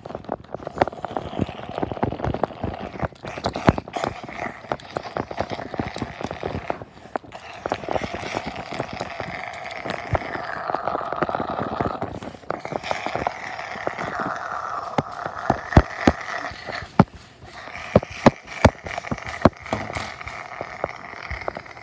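Rapid, irregular knocking and rattling as a LEGO toy truck and the camera are shaken about on a carpeted floor, over a continuous noisy rumble.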